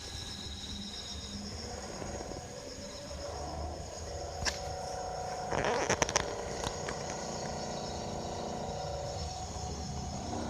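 Air conditioner outdoor unit humming steadily with a thin high whine, its fan not turning, the fault that a control board replacement later cured. A sharp click comes about four and a half seconds in, and a short burst of clicking around six seconds.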